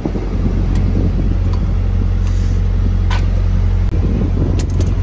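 Steady low hum of another vehicle's engine idling, with a few light metallic clicks and taps from an adjustable wrench tightening a truck's battery hold-down frame, the last ones near the end.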